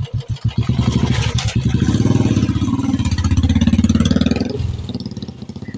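Royal Enfield Classic 350's single-cylinder engine running: from a slow idle beat it is revved up about half a second in, held for about four seconds, then drops back toward idle near the end.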